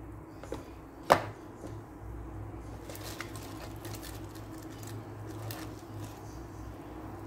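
Cookware being handled: one sharp knock about a second in, a smaller one just before, and a few light clicks later, over a steady low hum.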